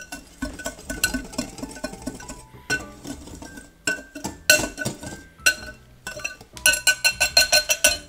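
Wire whisk clinking and scraping against a glass mixing bowl while whisking dry coconut flour mix, the strikes ringing briefly. The strokes get quicker and louder near the end, at about eight clinks a second.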